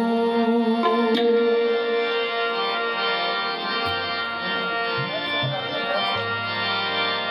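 Qawwali music: two harmoniums playing held chords, with hand-drum strokes coming in about four seconds in.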